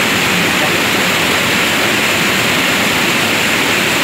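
River water pouring over a concrete spillway and churning in the pool at its foot, a loud, steady rush of water.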